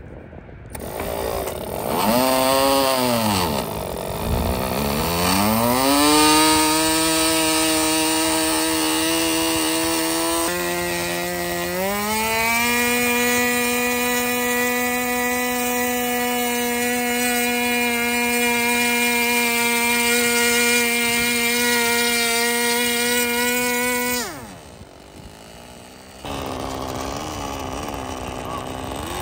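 Small O.S. 15 LA two-stroke glow engine on a model plane, started with an electric starter: it catches with its pitch swinging up and down, settles into steady fast running, then steps up to a higher, steady high-speed note about twelve seconds in. Near the end the sound drops suddenly to a quieter, lower, slightly wavering engine note.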